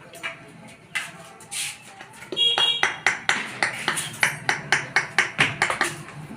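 Rapid metallic taps during electric motor repair work, about four a second, starting a little over two seconds in. The first tap rings briefly, and a few scattered knocks come before the run.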